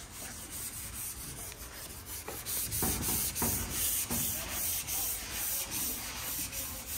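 Hand block-sanding of a Box Chevy's door panel: sandpaper on a long sanding block rubbing back and forth in rhythmic strokes, a little louder from about two seconds in.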